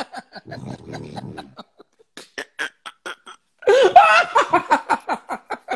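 A man laughing hard, in short breathy bursts that break into a loud, high laugh about four seconds in. Near the start there is a low, rattling snore from a sleeping woman.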